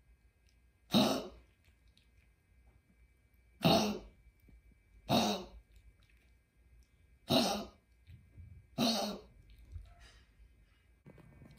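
Maltese dog coughing in five separate fits, a second and a half to nearly three seconds apart. It is a chronic cough that the owner puts down to laryngeal stenosis, brought on by changes in temperature.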